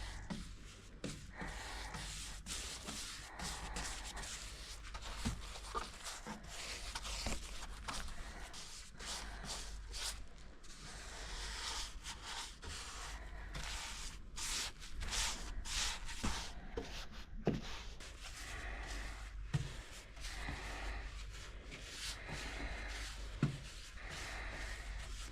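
A brush rubbing over the varnished wood in repeated strokes as paint stripper is applied, with a few light knocks.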